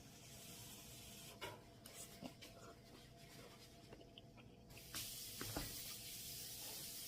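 Quiet eating of cup ramen: a few soft clicks and rubbing sounds. A steady hiss comes in about five seconds in.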